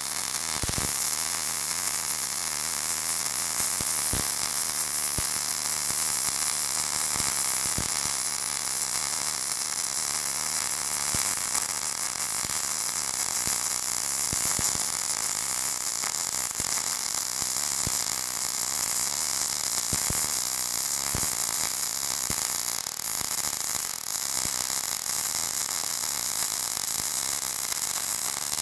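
MIG welding arc burning Rockmount Polaris MIG wire onto a painted, rusty pipe: a steady hiss with occasional sharp pops.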